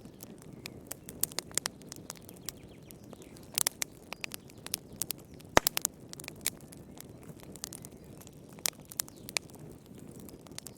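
Wood fire burning in a fireplace, crackling with irregular sharp pops over a low steady rush of flame, one louder pop about halfway.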